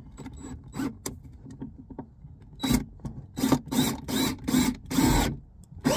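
DeWalt cordless drill/driver driving a screw in about six short bursts of the trigger, its motor whining with each burst; the last burst is the longest. Before the first burst there are a few small clicks of handling.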